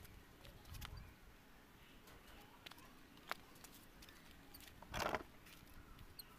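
Faint handling noises: scattered small clicks, a sharp tick a little after three seconds, and a short rustle about five seconds in.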